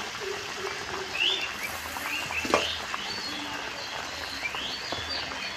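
Curry gravy bubbling at the boil in a kadai, with a sharp clink of the metal spatula against the pan about two and a half seconds in. Birds chirp several times in the background.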